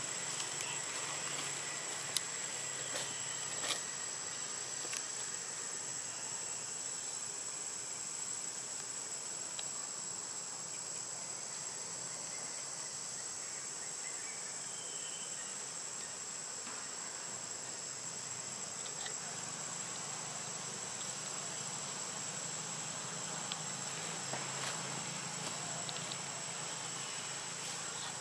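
Insects calling outdoors, a steady high-pitched drone that does not break, with a few faint clicks in the first few seconds.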